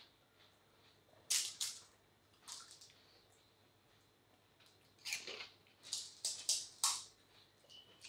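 Faint, scattered crackles and small liquid splashes from hollow pani puri shells being cracked, dipped in spiced water and eaten. There are a couple of short sounds in the first half and a quick cluster of them in the second half.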